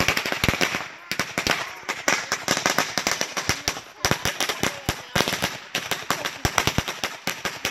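A long string of Black Cat firecrackers going off in rapid, irregular cracks, with a few brief lulls: about a second in and around four seconds in.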